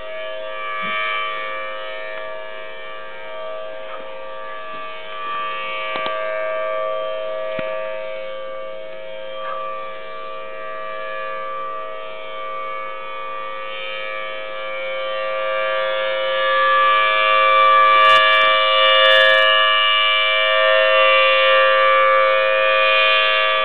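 Outdoor civil defense siren sounding a steady, held tone on its monthly test, growing louder about two-thirds of the way through.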